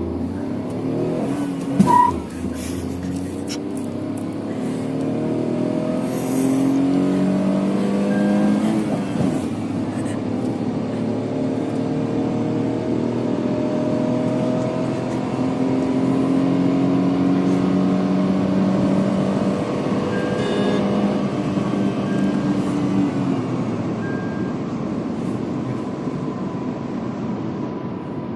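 Tata Altroz's three-cylinder petrol engine accelerating hard through the gears: the engine note climbs in pitch, drops at each gear change and climbs again, then eases off near the end. A short beep and a knock come about two seconds in.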